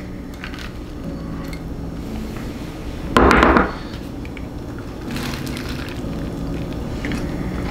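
A crisp-shelled, air-fried breakfast burrito being bitten into and chewed, with faint crunching and crackling in the second half. A short, loud rush of noise comes about three seconds in.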